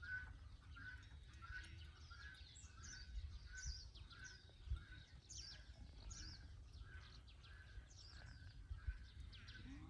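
Faint birdsong: one bird repeats a short note about twice a second while others give high, downward-sliding chirps, over a low rumble.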